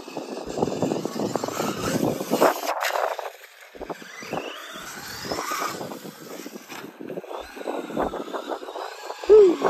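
Tekno SCT410SL 1/10 electric short course truck running on a dirt track: its 4600kv brushless motor whines, rising in pitch as it accelerates about four seconds in, while the tyres and chassis crackle and clatter over the dirt. A brief loud pitched blip sounds just before the end.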